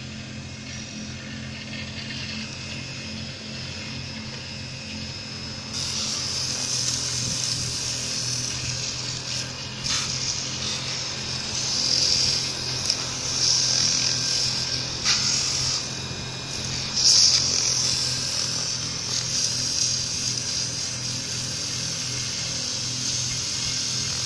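Homemade wood lathe's electric motor running with a steady hum as it spins a wooden rod. About six seconds in, sandpaper pressed by hand against the turning wood adds a hiss that swells and fades with the pressure, with a few sharp clicks.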